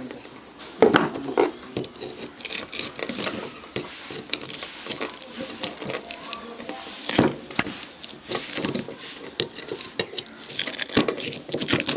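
Screwdriver and pliers working burnt copper coil wire out of a ceiling fan's stator: irregular metallic clicks, scrapes and taps, with louder knocks about a second in and about seven seconds in.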